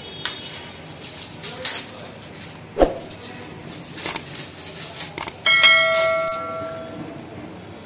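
Plastic water-filter cartridges knocked and handled, with scattered clicks and a sharp knock about three seconds in. About five and a half seconds in, a bright bell ding rings out and fades, the notification-bell sound effect of a subscribe-button animation.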